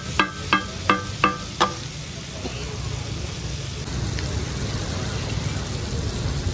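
Metal spatula striking a large iron tawa griddle: five ringing clangs, about three a second, stopping under two seconds in. Then chicken frying in oil on the griddle, under a steady low rumble.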